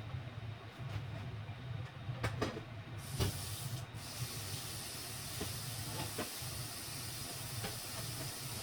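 Food sizzling in hot oil in a frying pan. The sizzle starts abruptly about three seconds in, just after a sharp clack, and runs steadily over a low hum, with a few light clicks.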